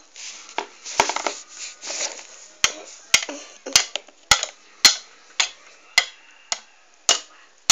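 Small plastic toys being handled on a plastic playset: rustling and clattering at first, then a run of about ten sharp taps, roughly two a second, like a toy figure being hopped along a hard plastic surface.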